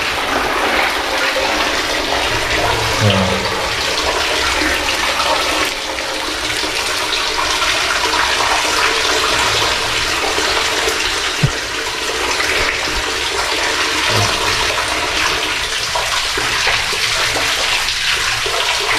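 Steady rush of running water in the tunnel, with a few soft low thumps and one sharp click about eleven seconds in.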